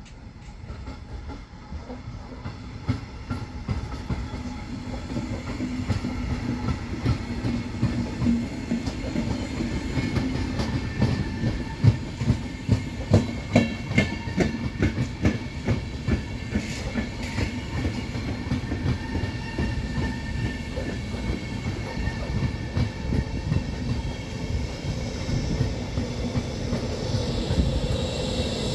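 A train running through a station, its wheels clacking over the track; the sound builds up over the first few seconds, and a run of loud clacks comes about twelve to seventeen seconds in.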